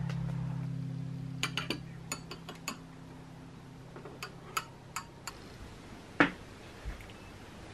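A metal fork clinking lightly against a ceramic plate: a few quick clinks in small clusters, with a single louder one near the end. Background music fades out at the start.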